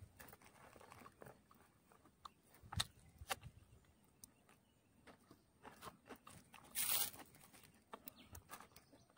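Faint scattered clicks and taps of food being handled on a dry palm-sheath plate, with a short rustle about seven seconds in.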